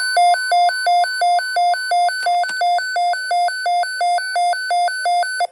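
Emergency alert tone: an electronic two-tone alarm that switches rapidly between a low and a high beep, about three times a second, announcing a severe thunderstorm watch. It cuts off abruptly near the end.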